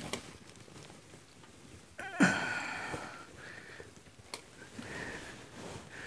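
A man's short groaning exhale, sudden and falling in pitch, about two seconds in, with a couple of sharp clicks from hands working at the tractor's front wheel hub.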